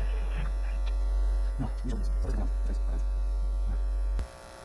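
Loud, steady, low electrical mains hum that cuts off abruptly about four seconds in.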